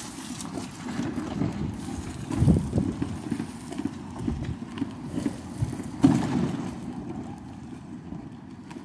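Irregular low knocks and bumps with rustling, loudest about two and a half seconds and six seconds in.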